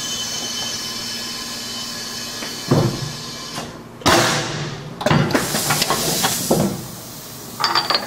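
Impact-test rig that fires a 330-gram weight at a helmet shell at 180 km/h: a steady hiss of air, then a thud, then a sharp loud blast about four seconds in as the weight is fired into the shell. Knocks and rattles follow as the rig's hinged clear guard is handled.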